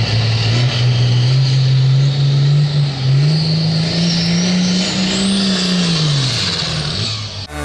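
Altered stock pulling tractor engine under full load on a pull: a loud, steady drone that climbs in pitch about three seconds in, with a high whine rising alongside, then drops away near the end as the throttle comes off.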